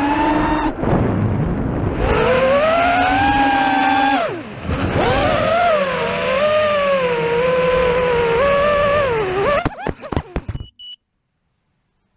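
FPV freestyle quadcopter's motors and propellers whining, the pitch rising and falling with the throttle and dropping away briefly twice, about a second in and about four and a half seconds in. Near the end the whine breaks into a stuttering clatter and cuts off.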